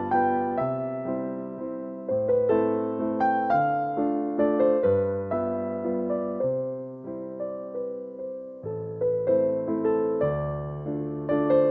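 Background music: a gentle electric piano melody with steady chords.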